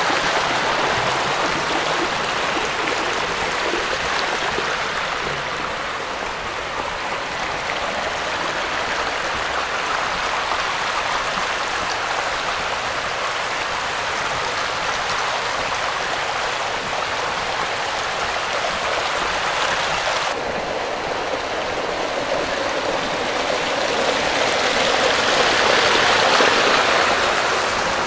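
Steady rushing of running water, like a stream or roadside channel, changing in tone about twenty seconds in and growing louder near the end.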